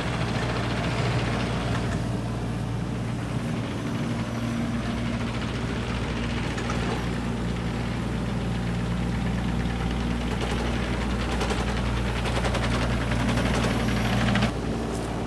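Takeuchi TB 225 mini excavator's diesel engine running steadily. About ten seconds in, a fast rhythmic rattling joins it, and both the rattle and the engine's low hum cut off suddenly near the end.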